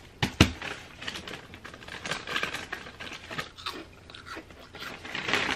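Packaging crinkling and rustling as it is handled, with two sharp knocks just after the start.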